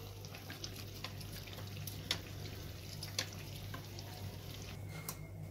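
Kachori deep-frying in hot oil in a wok: a low sizzle with scattered pops and crackles as hot oil is spooned over it.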